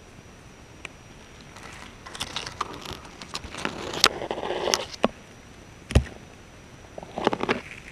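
Grass blades and dry leaves rustling and scraping against an action camera strapped to a box turtle's shell as it walks through undergrowth. The rustling comes in irregular bursts, with scattered clicks and a sharp knock about six seconds in.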